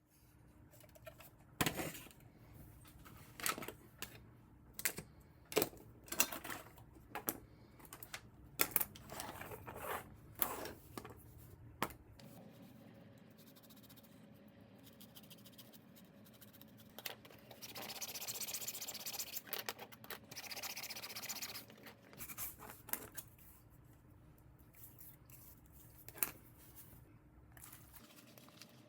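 Irregular clicks and taps of small hard objects being handled on a work surface, then a steady hiss lasting about four seconds, and a few more clicks near the end.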